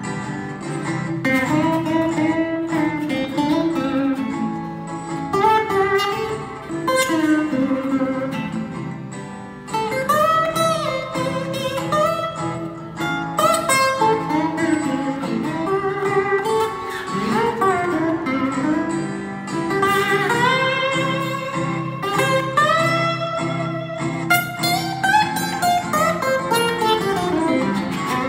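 Two acoustic guitars playing an instrumental blues break: a strummed rhythm part under a lead line full of sliding, gliding notes.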